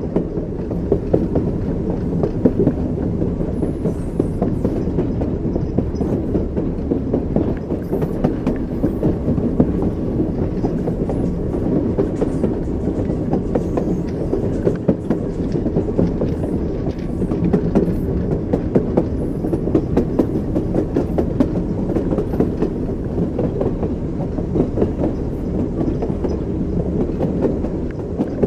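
Train wheels clacking over the rail joints over a steady rumble of a moving train.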